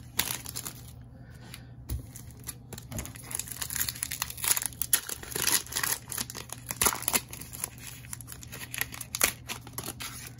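Crinkling and rustling of a plastic cello-pack wrapper on a pack of trading cards being handled, in a rapid irregular crackle.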